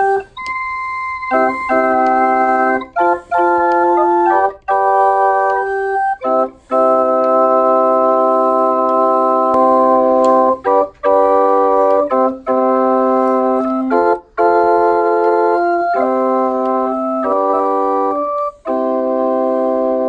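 Small wooden kit pipe organ with handmade oak pipes being played: a tune in held chords of several notes, with short breaks between chords.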